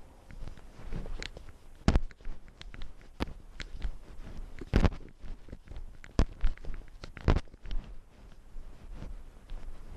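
A cat's paws stepping over old wooden boards, heard close up through a camera worn on the cat: irregular soft clicks and knocks, with a few louder thumps, about two seconds in, near the middle, and twice more a few seconds later.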